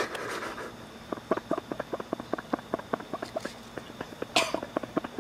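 A man spluttering and gagging: a sharp spitting burst at the start, then a fast run of short choking, gulping sounds, several a second, broken by a harsh cough about four seconds in.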